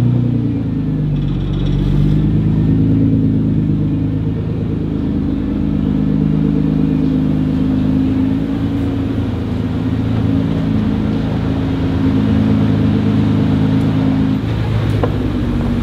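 Nissan GT-R R35's twin-turbo V6 exhaust running at low revs, a deep steady burble whose pitch shifts slightly now and then.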